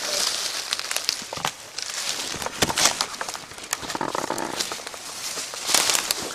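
Footsteps crunching and shuffling through dry fallen leaves on the forest floor, with brush and clothing rustling: a dense, irregular crackle with louder crunches.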